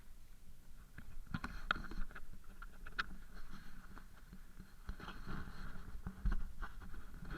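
Water rushing and splashing along the hull of a Mirror dinghy under way, with a few sharp slaps of water against the boat and a low wind rumble on the microphone.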